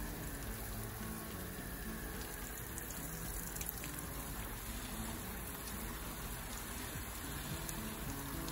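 Water spraying steadily from a garden hose spray nozzle and splashing onto a plastic cooler lid.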